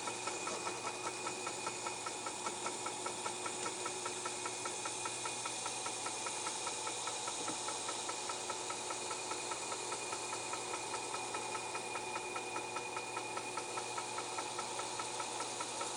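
Corded power tool fitted with a wire brush running steadily, its motor holding a constant pitch with a fast regular pulse in the sound, used to strip rust from a cast iron pan.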